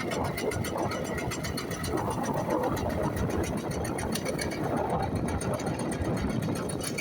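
An engine running steadily at an even speed, with a fast regular ticking rhythm.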